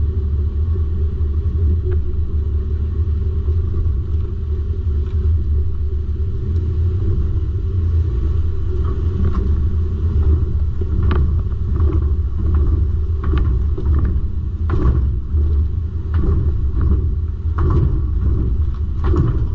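Steady low rumble of a 2022 Ram 1500 Classic pickup being driven over a bumpy test course, heard from beside the rear axle. From about nine seconds in come repeated short knocks and clatters as the rear suspension, carrying about 1,000 pounds on its factory jounce stops, travels up and down.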